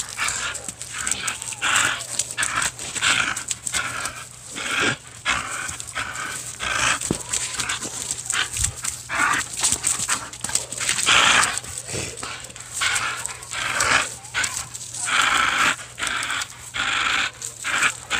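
A dog biting and tugging at a thick rope swing, breathing hard in short noisy bursts about once or twice a second.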